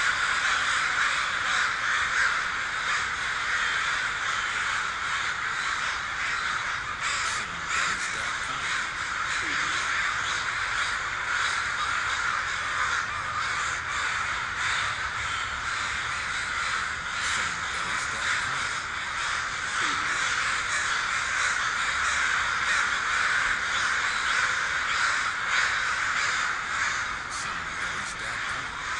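A flock of crows cawing, many calls overlapping without a break.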